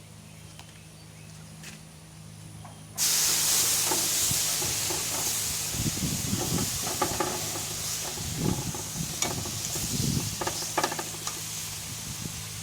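Food sizzling hard on a charcoal barbecue, starting abruptly about three seconds in, with scattered pops and clicks. A low steady hum runs underneath.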